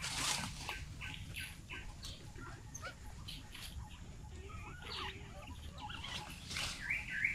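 Many short, high animal chirps and squeaks in forest, several a second, with two louder bursts of noise, one just after the start and one near the end.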